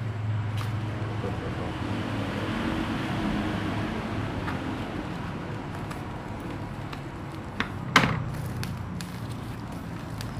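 Parcel packaging rustling and crinkling as it is opened by hand, over a steady low hum, with one sharp snap or knock about eight seconds in.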